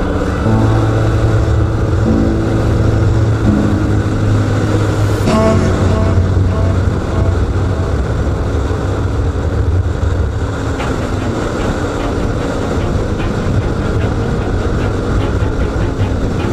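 Kawasaki Ninja 400's parallel-twin engine running steadily under way, with wind noise over the microphone. The engine note dips briefly about five seconds in, then carries on.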